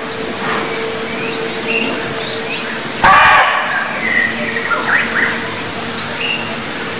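Barking deer (muntjac) giving a single sharp bark about three seconds in, lasting about half a second, with the next bark starting at the very end. Small birds chirp repeatedly in the background between barks.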